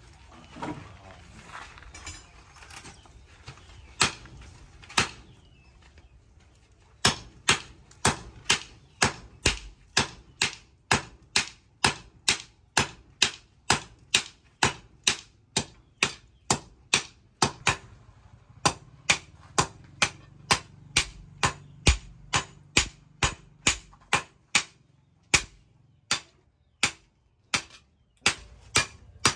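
Hammers striking a red-hot steel bar on a small steel anvil, blacksmith forging by hand. Two single blows come a few seconds in, then a steady run of sharp strikes at about two a second as two strikers take turns with sledgehammers, thinning to a few scattered blows near the end.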